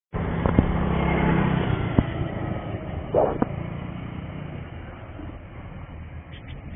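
A motor vehicle's engine running close by and fading away over the first three seconds, with a few sharp clicks.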